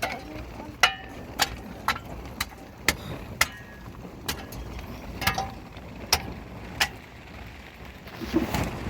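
A series of sharp, hard knocks at an uneven pace, about one every half second, some with a brief ring, followed near the end by a short rustle.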